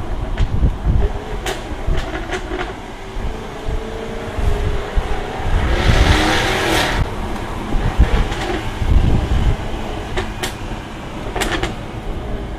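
Jaguar F-Type R's supercharged 5.0-litre V8 running through its exhaust on the move, a deep rumble with sharp exhaust crackles and pops, a few near the start and two more near the end. About six seconds in the engine note swells into a louder burst.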